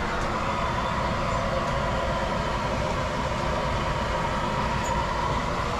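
A steady motor or engine running without change, with a constant hum and several steady tones over a rushing noise, cutting off just after the end.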